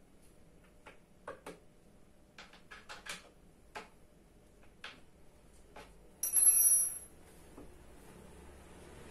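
Steel hex key ticking and clicking against an office-chair armrest bolt as it is turned, a dozen or so light metallic clicks. About six seconds in, the hex key is set down on the ceramic tile floor with a loud, brief metallic ring.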